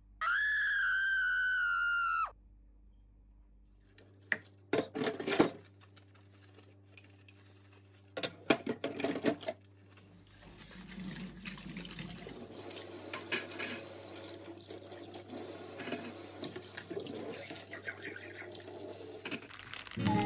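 Kitchen sink sounds: a few clatters of dishes or utensils, then a tap running steadily for about the last ten seconds. It opens with a high, steady tone lasting about two seconds.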